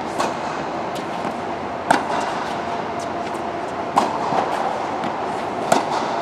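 Sharp ball strikes in a rally, the three loudest about two seconds apart, over a steady background rush of noise.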